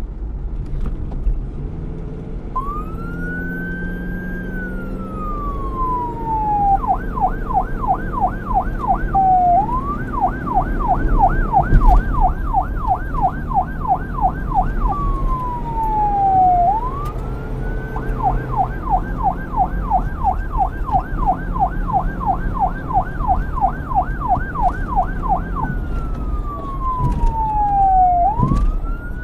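Police car siren cycling between a slow wail, rising and then gliding down, and a rapid yelp at about four sweeps a second, switching back and forth several times. A low traffic rumble runs underneath.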